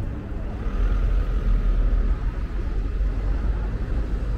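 City street traffic: a motor vehicle passing close by, with a low rumble that swells about a second in and holds.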